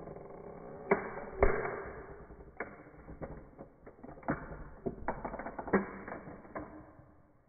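A toy car's body and parts creaking and cracking as it is crushed under a high-heeled shoe. The sharpest snaps come about a second in and again half a second later, followed by scattered smaller cracks and creaks that die away near the end.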